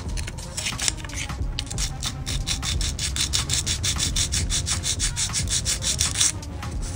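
Sanding stick rubbed back and forth on the edge of a plastic model-kit part: a rasping scrape, loose strokes at first, then quick even strokes, several a second, from about two seconds in until just before the end.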